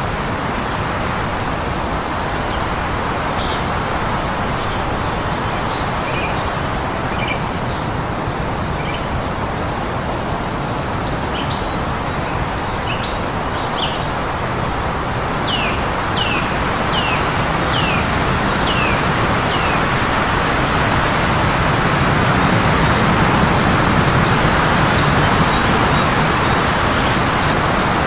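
Strong wind blowing steadily, growing a little louder in the second half, with birds chirping over it: scattered short high chirps, and about halfway through a run of five quick falling notes.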